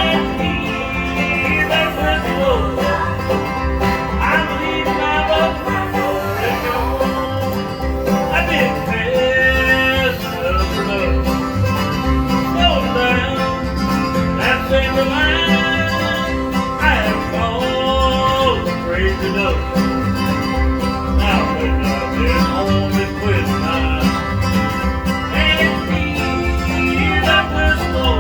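Bluegrass band playing, with a steady pulse in the bass and a lead line above it that slides in pitch.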